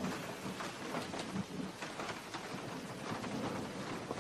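Steady rain falling in a thunderstorm: an even hiss with scattered faint drop ticks.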